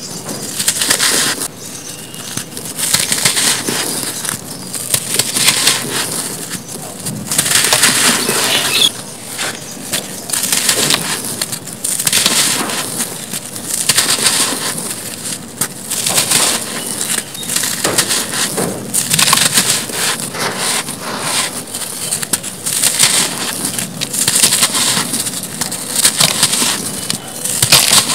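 Soft, sandy cement blocks crumbled by hand: gritty crunching as they break apart, with crumbs and powder pouring onto a pile of grit. The crunching comes in waves every couple of seconds.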